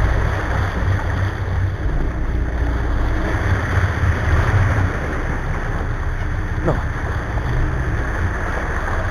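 Cabo 40 sportfishing boat under way: engines running under churning water from the wake, with wind buffeting the microphone. A short squeak sweeps up and down about two-thirds of the way through.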